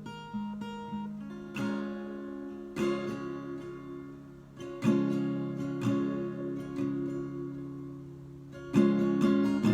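Acoustic guitar playing a song intro: a few soft picked notes, then strummed chords that ring and die away, each struck about every second or two, with a quick run of strums near the end.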